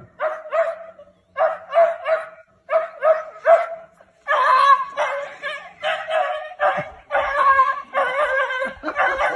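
A dog yipping in quick runs of three or four short cries, then barking more densely and fully from about four seconds in.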